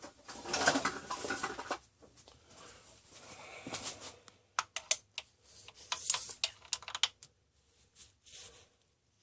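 Hand-tool and parts handling noise while spark plugs are pulled from the engine: a rustling scrape at the start, then a run of sharp clicks and clinks.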